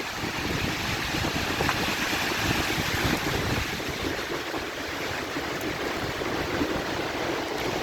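Strong wind gusting through trees, a steady rushing that swells a little partway through, with gusts buffeting the microphone.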